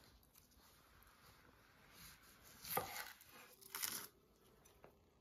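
Dry onion skin crackling and tearing as it is peeled from a white onion with a knife, in two brief bursts about a second apart around the middle.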